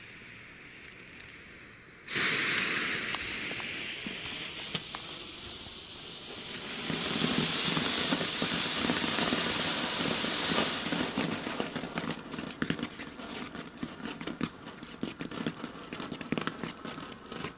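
Two small class 1 ground fountains, a Komet Small Pagoda and a Weco Flitze Feuerstein, spraying sparks with a steady hiss and crackle. The hiss starts suddenly about two seconds in and is loudest around the middle. It then thins to scattered crackling and stops near the end.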